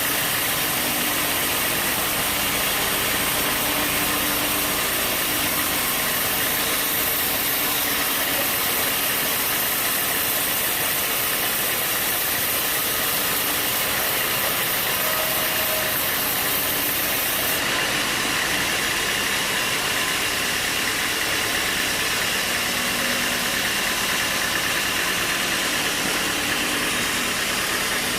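Sawmill machinery running steadily, a constant mechanical drone with a hiss over it. The highest part of the hiss drops away about two-thirds of the way through.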